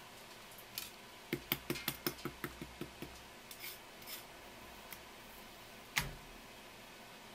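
Kitchen knife clicking against a wooden cutting board while working a conger eel fillet, a quick run of about nine strokes. Near the end there is a single louder knock.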